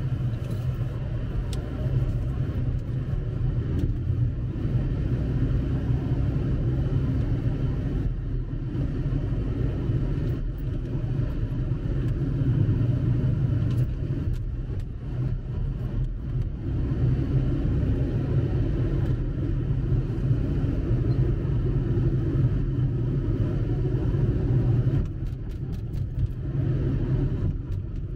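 Steady low rumble of a car's engine and tyres on the road, heard from inside the cabin while driving. It eases slightly near the end.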